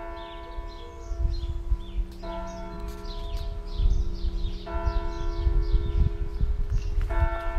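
A single church bell struck slowly, about once every two and a half seconds, each stroke ringing on at the same pitch until the next. Birds chirp over it and a low rumble runs underneath.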